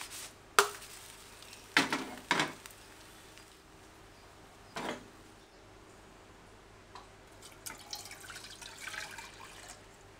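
A few separate knocks of a pan and utensils against the stove, then liquid poured from a bowl into a small saucepan, splashing and bubbling for the last couple of seconds.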